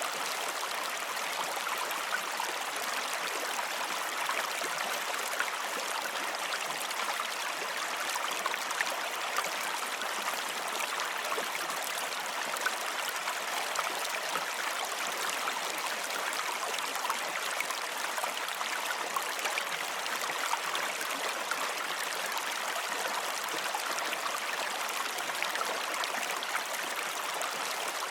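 Running water flowing steadily, like a stream, with a constant fine splashing made of many small drops and ripples.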